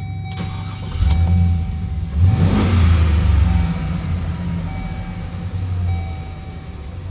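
Van engine idling, revved up about a second in and again just after two seconds with a rising pitch, then easing back toward idle.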